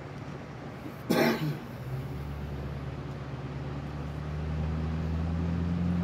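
Low, steady hum of a motor vehicle's engine, starting about two seconds in and slowly growing louder. A short, loud burst of noise about a second in.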